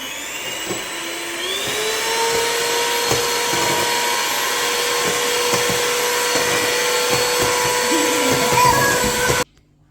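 Electric mixer whisking cake batter: its motor speeds up with a rising whine over the first second or so, runs steadily, and cuts off suddenly near the end.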